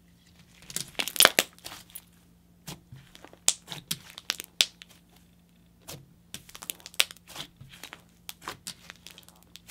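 Thick, stiff DIY clay slime being stretched, folded and pressed by hand, giving irregular crackling pops and small tearing sounds as its rippy texture breaks apart. The loudest cluster of pops comes about a second in, and a faint steady hum sits underneath.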